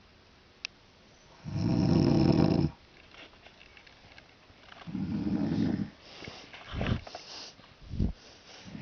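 Snoring during sleep: two long, loud snores about three seconds apart, each lasting about a second, then a couple of shorter, quieter ones near the end.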